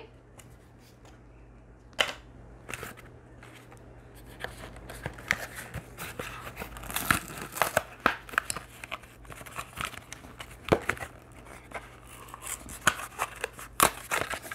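Cardboard and plastic packaging of a Kinder Egg 3-pack being torn and crinkled open by hand: a sharp snap about two seconds in, then dense, irregular crackling and rustling.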